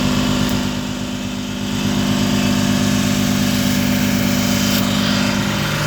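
Ship's engine machinery running steadily: a constant low hum with a fast, even pulsing underneath.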